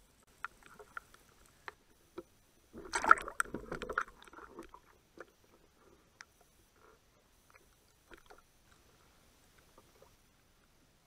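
Water noise picked up by a camera in an underwater housing: scattered small clicks and knocks, with a louder burst of sloshing and bubbling about three seconds in.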